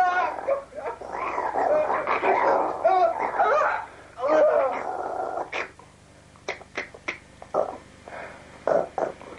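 Animal-like growling and whimpering with a wavering pitch for about the first four and a half seconds. This is followed by a few short, sharp sounds.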